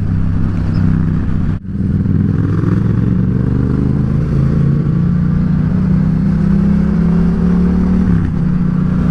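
Yamaha XSR700's parallel-twin engine running steadily while riding, with wind hiss. The sound cuts out for an instant about a second and a half in, and the engine note changes near the end.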